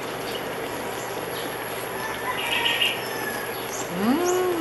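Small birds chirping faintly over a steady background hiss, with a short chirpy burst around the middle. Near the end comes a brief voice-like hum that rises, holds and falls.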